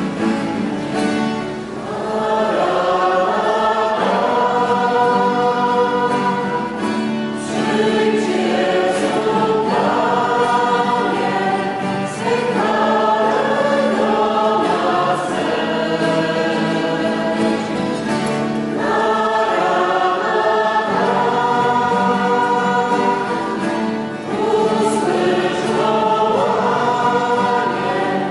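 Mixed choir singing a hymn in long, sustained phrases with brief pauses between them, accompanied by acoustic guitar.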